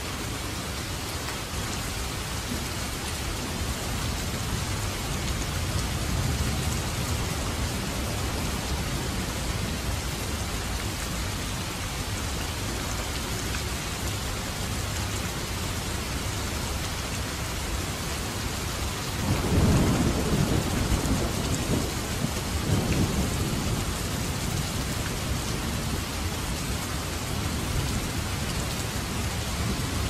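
Steady rain hissing and pattering, with low thunder rumbling underneath. About two-thirds of the way in, a louder roll of thunder swells for a few seconds.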